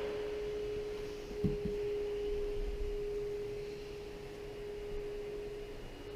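A steady single-pitched tone that holds without change, with a short low knock about a second and a half in.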